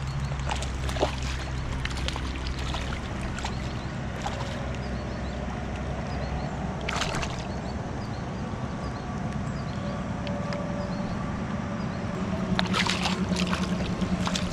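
River water sloshing and lapping close to the microphone at the shallow edge, with splashes from a hooked rainbow trout being drawn in to the bank: one about halfway through and a busier run of splashing near the end.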